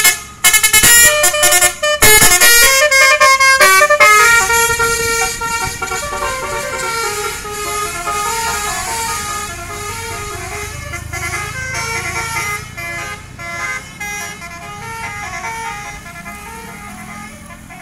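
Telolet musical air horns on two Tunggal Jaya buses playing a fast tune of short stepped notes together. Loud for the first four seconds, then carrying on more softly.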